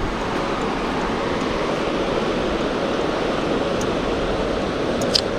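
Steady rushing of a fast mountain river, an even wash of water noise, with a brief high chirp near the end.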